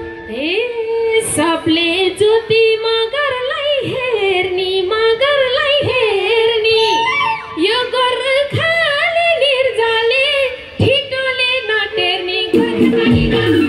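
A woman singing a Nepali dohori folk melody into a microphone, her line heavily ornamented with a wavering vibrato over sparse accompaniment with a held note underneath; the full band comes back in near the end.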